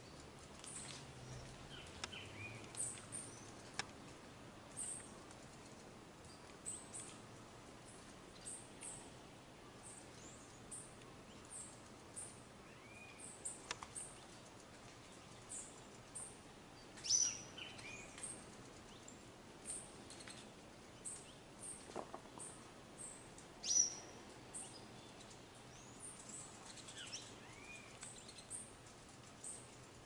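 Birds calling in woodland: many short, high-pitched chirps and squeaks scattered throughout, with two louder calls that slide downward in pitch, one just past halfway and one about four-fifths of the way in.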